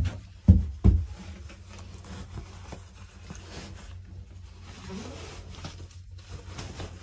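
Three heavy thumps in the first second, then soft rustling of work clothes and handling inside a plastic portable toilet stall.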